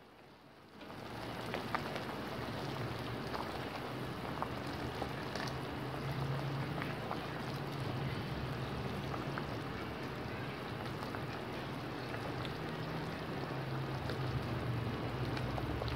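Pork sinigang broth boiling hard in a stainless steel pot: a steady bubbling hiss with faint scattered pops, starting about a second in, over a low steady hum.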